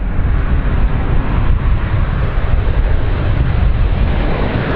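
Boeing 737-800 BBJ2 jetliner's CFM56-7 turbofan engines on final approach, a steady, deep rumbling jet noise.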